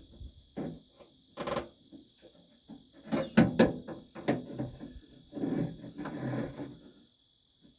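Hand tools and metal parts clicking, knocking and scraping while working a stuck door latch and handle mechanism inside a 1957 Ford F100 door; a quick run of sharp knocks comes about three seconds in, then a stretch of rough scraping.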